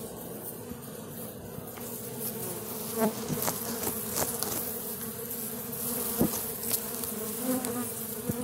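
A swarm of honey bees buzzing close by: a steady hum of many wings. From about two seconds in, short sharp ticks and knocks sound over it.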